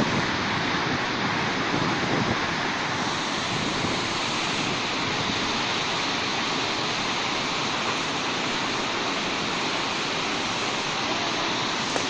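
Waterfall rushing steadily, with water let through a floodgate that has just been opened.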